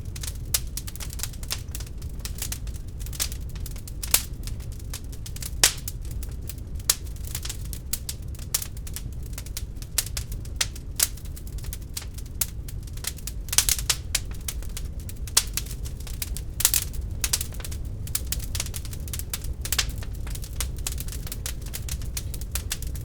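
Wood fire burning in a fireplace, crackling with irregular sharp pops and snaps over a steady low rumble.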